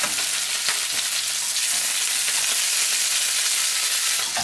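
Flathead fillets frying in hot sunflower oil in a stainless steel frying pan: a steady sizzle.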